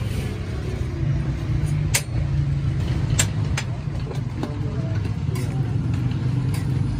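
Steady low rumble of background machinery or traffic, with a handful of sharp metallic clicks of tongs and a spatula on a steel griddle.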